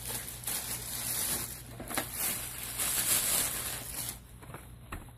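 Plastic packaging rustling and crinkling, with a few light knocks, as a vacuum cleaner's power nozzle is handled; it dies down about four seconds in.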